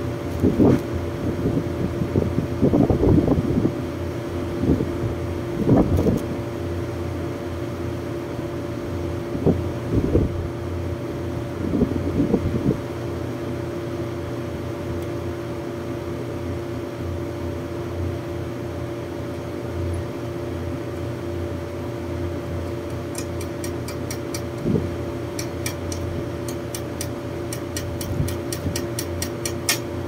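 Steady mechanical hum of rooftop air-conditioning outdoor units running, with two constant tones. Scattered knocks and bumps from hand tools at the compressor wiring in the first half, and a quick, even run of light clicks, about three a second, over the last several seconds.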